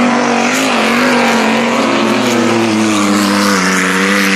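Stock car engines running hard as several cars race through a dirt-track corner. The main engine note dips slightly near the start, then holds fairly steady over a rush of tyre and dirt noise.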